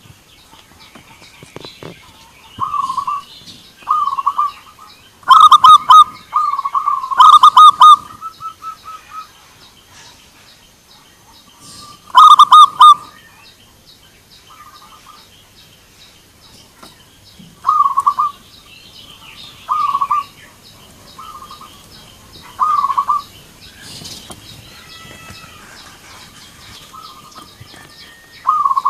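Zebra doves (perkutut) answering one another with their staccato cooing: short bursts of rapid coo notes every second or two, with the loudest calls about 5, 7 and 12 seconds in.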